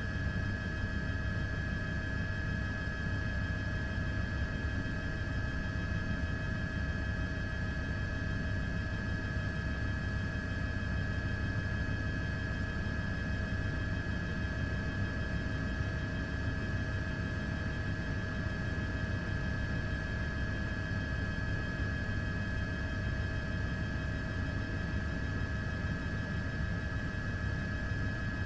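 Steady helicopter drone heard from on board: a low rumble with several constant high whining tones, unchanging.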